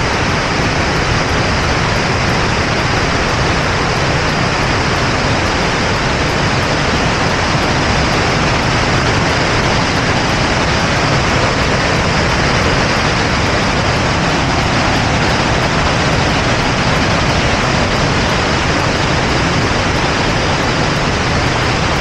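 Musonda Falls rapids pouring through the rocks below, a loud, steady rush of whitewater.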